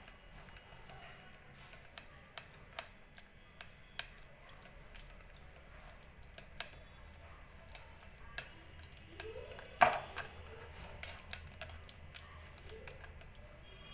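A utensil mashing soft boiled raw mango against a metal strainer, with irregular light clicks and scrapes of metal on metal and one louder clink about ten seconds in.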